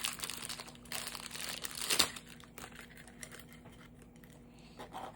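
Plastic packaging crinkling as it is handled and unwrapped, dense for about the first two seconds with a sharp crackle near the end of that stretch, then only light rustling.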